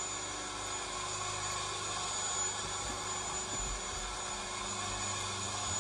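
Steady machine hum with an even hiss over it and a thin high whine, unchanging throughout.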